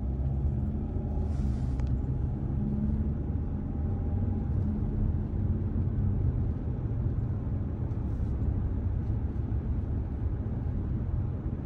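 Steady road and engine rumble inside the cabin of a moving Hyundai SUV cruising along a road, with a low hum under the tyre noise.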